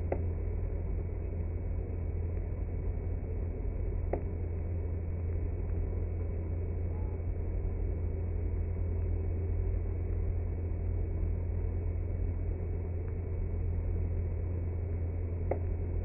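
Microwave oven running with light bulbs burning inside, slowed down for a slow-motion replay: a steady deep, muffled hum with a few faint clicks, about a second in, about four seconds in and near the end.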